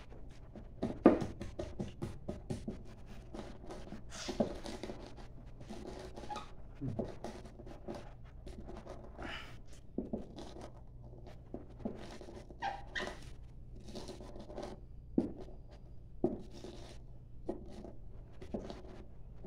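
A wooden pestle pounding chilies with salt and vinegar in a ceramic bowl: irregular knocks and wet mashing, some strokes harder than others.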